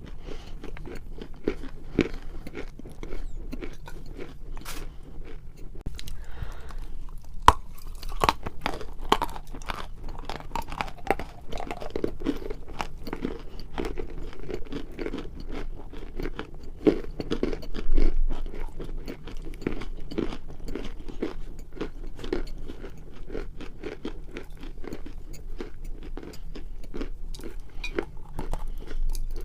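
Lumps of dry edible clay being bitten and chewed up close: a steady run of crisp crunches, with a few louder bites about 7 and 18 seconds in.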